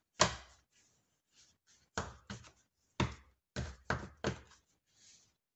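Punched paper pages and a card cover of a notebook knocking and tapping against the table as they are fitted onto black wire binding rings. A sharp knock, the loudest, comes about a quarter second in, followed by about six more knocks and taps over the next few seconds.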